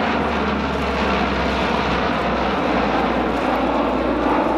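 Lockheed C-130H Hercules' four Allison T56 turboprop engines and propellers droning steadily and loudly as the transport flies past in a banking turn.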